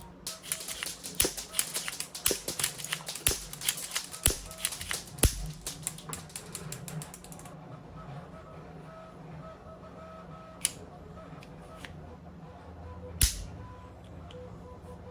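A rapid, irregular run of sharp plastic clicks and clacks for about seven seconds, then two single loud clicks a few seconds apart.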